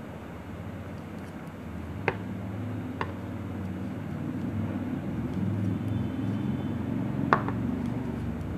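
Three sharp clicks of knitting needles knocking together while stitches are worked, the last one loudest near the end. Under them a low, engine-like rumble swells over a few seconds and eases off near the end.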